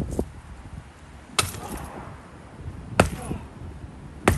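Sledgehammer striking a couch frame: three sharp blows about a second and a half apart.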